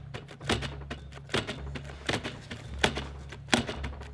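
Ryobi One+ and Milwaukee cordless drills driven against each other chuck to chuck in low gear, both motors stalled under load with a low hum that breaks off and resumes. Sharp clicks come about every three-quarters of a second.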